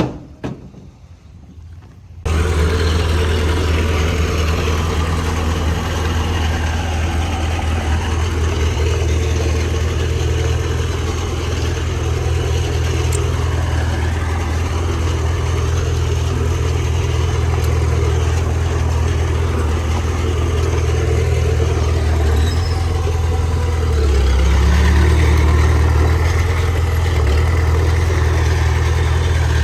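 Heavy diesel engine of earthmoving machinery running with a steady low drone that cuts in suddenly about two seconds in, after a few light clicks. It grows a little louder and deeper near the end.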